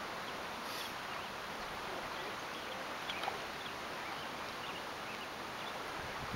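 Steady outdoor hiss of wind and small waves on the water, with faint scattered bird chirps.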